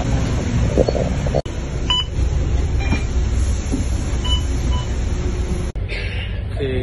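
Double-decker bus cabin noise: the engine running with a steady rumble and general interior noise. There is a short electronic beep about two seconds in and a fainter one about four seconds in. The sound drops out briefly twice where the recording is cut.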